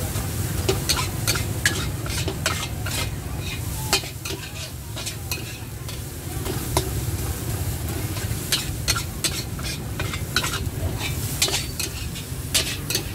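Metal spatula scraping and clanking against a steel wok as rice with beef and egg is stir-fried, the food sizzling. The clanks come fast and irregularly, over a steady low rumble.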